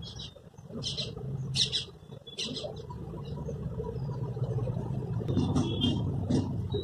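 Small birds chirping in short, high, repeated calls, about one or two a second, over a steady low hum.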